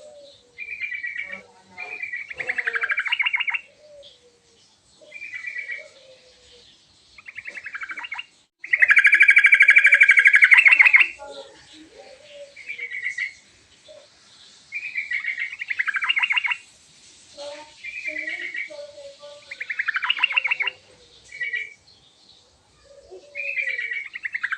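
Yellow-vented bulbul (trucukan) singing in full, lively song: short, rapid chattering phrases repeated every second or two, with one longer, louder run of notes about nine seconds in. Softer, lower notes fall between the phrases.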